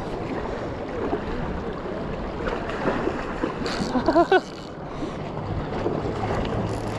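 Steady rush of fast river water close by, with wind buffeting the microphone.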